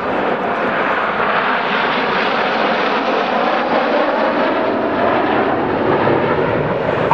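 Jet noise from a formation of BAE Hawk T1 trainers with their Adour turbofans flying past overhead, a steady rushing sound that holds at one level throughout.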